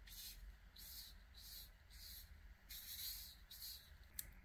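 Faint swishes of a soft bristle brush sweeping loose craft sand across sticker-paper card, in short strokes about two a second, with a small click near the end.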